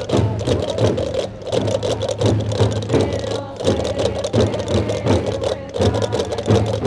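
Traditional Gomeran drums (tambores) beaten together in a steady processional rhythm, with a dense, rapid clatter of chácaras (large Canarian castanets) over the drumbeats.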